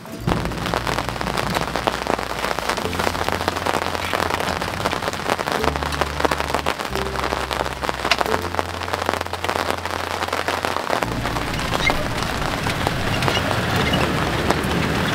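Rain falling steadily: a dense, even patter of drops.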